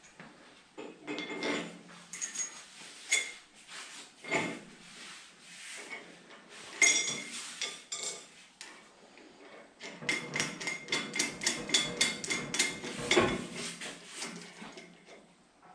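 Metal clinks and taps from a nut and tool being worked on the threaded rod end at the top of a steel auto lift post. The clinks are irregular, with brief metallic ringing. About ten seconds in comes a quick run of clicks, several a second, lasting a few seconds.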